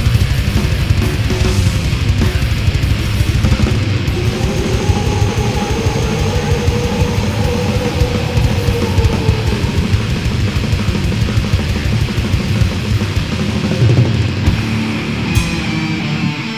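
Thrash/death metal recording: distorted electric guitars over fast, dense drumming. A long held note bends slightly about four to nine seconds in.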